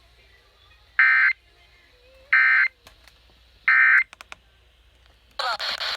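NOAA Weather Radio Emergency Alert System end-of-message data bursts: three short, harsh electronic warbles, about 1.3 s apart, signalling that the alert broadcast has ended. Near the end a loud hiss of radio static cuts in.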